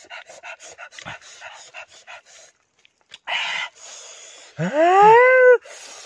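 Chewing and lip-smacking of people eating roasted chicken with their hands, in a quick regular rhythm of about five smacks a second. After a short pause comes a brief loud noisy burst, then near the end the loudest sound: a man's drawn-out vocal cry that rises in pitch and levels off.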